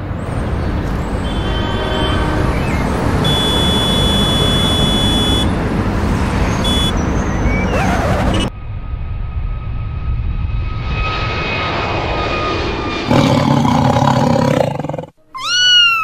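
Dense city traffic noise with car horns honking, some short and some held. It cuts off sharply about halfway through to a quieter stretch with a steady held tone. Near the end there is an animal call of about two seconds that rises in pitch and then slowly falls.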